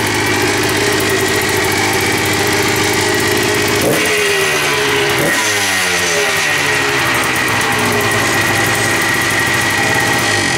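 1982 Yamaha IT175's single-cylinder two-stroke engine running on its first start after a carburettor clean-out. It idles steadily, the revs rise sharply twice about four and five seconds in, then slowly fall back to idle.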